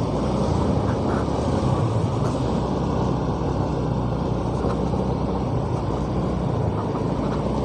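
Motorcycle riding at low speed, heard from the rider's seat: a steady engine hum under constant wind and road noise.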